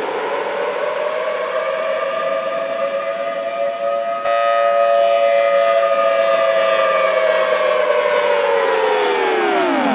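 Thunderbolt 1000T tornado warning siren sounding a steady held tone. About four seconds in the sound changes abruptly to a louder, harsher version, and near the end the pitch falls away as the siren winds down.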